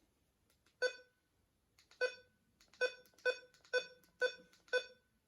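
Eton ZoneGuard weather radio giving short electronic key beeps as its buttons are pressed to enter a SAME county code. There are seven identical beeps, two spaced out at first, then about two a second.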